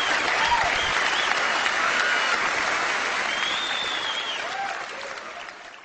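Large audience applauding, fading away near the end.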